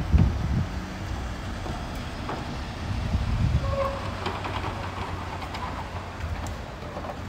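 City street traffic: cars and a van passing close by at low speed, a low engine and tyre rumble that swells right at the start and again about three seconds in.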